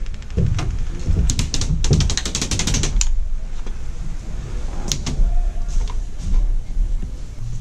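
Handling noise from an airsoft sniper rifle and its large suppressor: a quick run of small rapid clicks and rattles from about one to three seconds in, then a few separate knocks as the suppressor is gripped and twisted.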